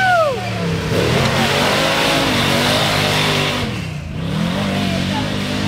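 Lifted Dodge Durango mud truck's engine revving hard under load as it powers through mud, its pitch rising and falling. The revs drop briefly about four seconds in, then climb again.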